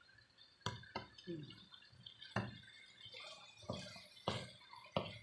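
Wooden spatula knocking and scraping against a pan while stirring a saucy eggplant-and-meat sauté, about six sharp knocks at uneven intervals.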